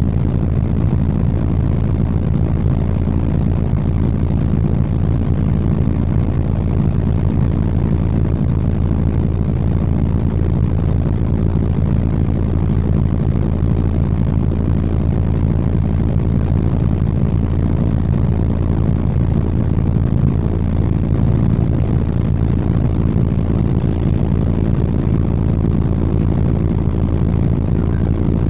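City bus engine running steadily with a low-pitched hum, heard from on board the bus.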